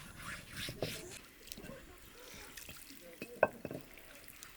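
Rubbing or scraping with a few scattered knocks; the sharpest knock comes about three and a half seconds in.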